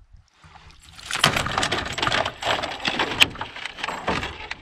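Large northern pike thrashing at the side of a canoe: loud splashing with sharp knocks against the hull. It begins about a second in and dies away near the end.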